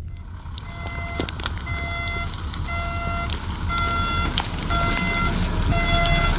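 Car's reversing warning beep sounding about once a second, each beep about half a second long, while the car backs into a parking space, over low engine and road rumble.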